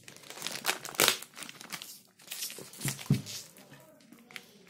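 Clear plastic shrink-wrap crinkling and tearing as it is peeled off a paperback book, in irregular rustles that die down over the last second.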